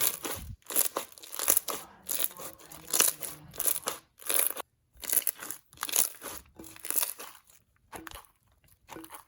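Clear slime with foam beads being squeezed and folded by hand, crunching and crackling in short bursts, about one or two a second.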